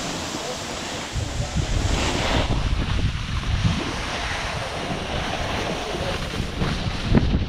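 Wind buffeting the microphone while a snowboard slides and scrapes over packed, tracked snow on a downhill run, as a steady rushing hiss. The low wind rumble gets stronger about a second in.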